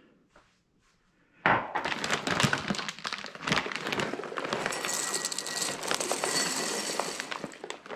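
Dry grains scooped with a glass and poured, a dense rattle of many small grains that starts about a second and a half in.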